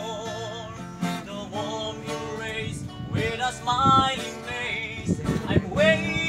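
Young men singing a song together to acoustic guitar accompaniment, with held notes that waver in pitch and strummed chords underneath.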